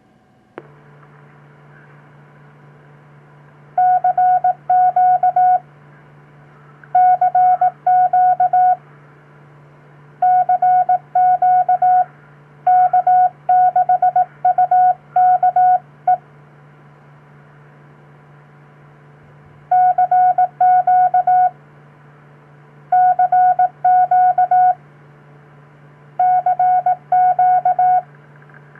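Hand-sent Morse code (CW): a single mid-pitched tone keyed on and off in dots and dashes, in groups of about two seconds with short pauses between, sending a CQ call to the call sign K6UKE. A steady low hum runs underneath, starting with a click just after the beginning.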